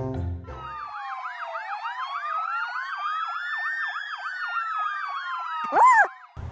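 Electronic police siren, as on a child's ride-on toy police motorcycle: a quick warble about four times a second over slower rising and falling wails, with a sharp up-and-down swoop near the end before it cuts off.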